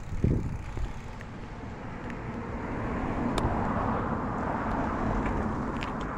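A car passing: tyre and road noise swells over a couple of seconds and fades again, over a low rumble of wind on the microphone.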